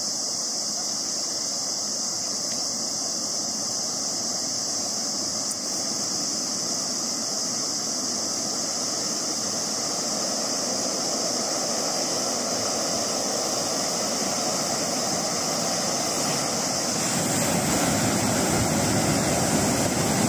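Flash flood in a dry riverbed: a steady rushing noise that grows louder and deeper near the end as the muddy floodwater surges through.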